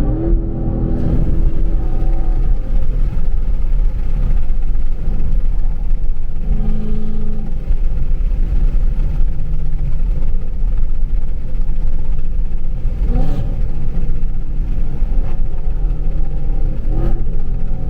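Ford Mustang GT's 5.0 Coyote V8 with long-tube headers and an X-pipe pulling hard at full throttle, loud and screaming. Its pitch sweeps up quickly twice near the end.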